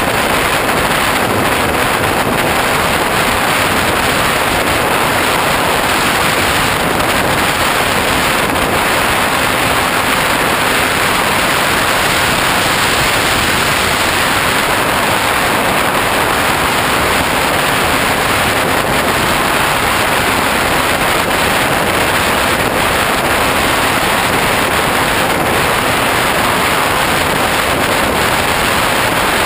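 Steady, loud rush of wind over the microphone of a GoPro carried on a Hobbyking Bixler RC plane in flight.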